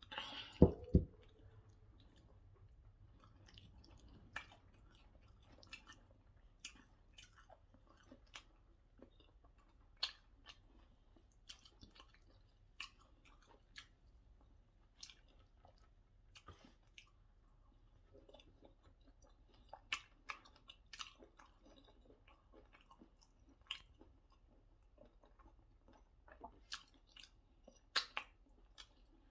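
Close-up mouth sounds of a person eating white starch and egusi soup: soft, sparse chewing with wet smacks and clicks every second or so. Two loud knocks about a second in are the loudest sounds.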